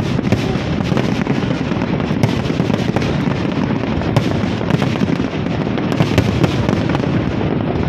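Fireworks display: many shells bursting and crackling in quick succession, a continuous barrage of overlapping bangs.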